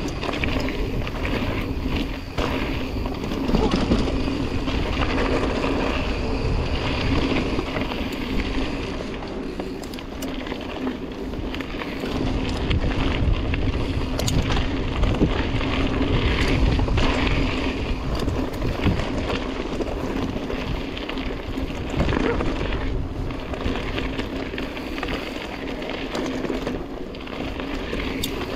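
Mountain bike ridden fast down bumpy singletrack: wind rushing over the microphone, tyres rumbling on the dirt, and the bike rattling with frequent knocks and clicks over the bumps.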